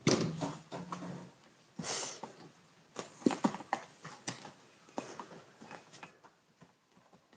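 Very young kittens at play: scattered light taps, clicks and knocks at an uneven pace, with a short rustling burst about two seconds in.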